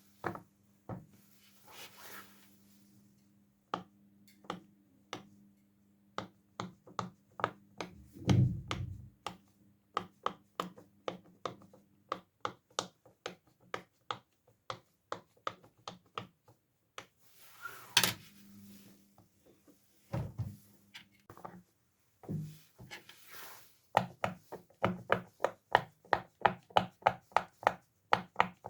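Plastic fidget toys being popped and squeezed: a long series of sharp clicks and pops, with a duller thud about 8 seconds in and one loud crack about 18 seconds in, turning into a quick even run of pops, about four a second, in the last few seconds.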